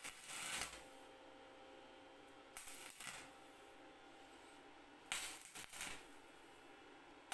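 Stick welder tacking a steel wire pot-support ring: the arc crackles in three short bursts, each about half a second to a second long, with a fourth starting at the very end.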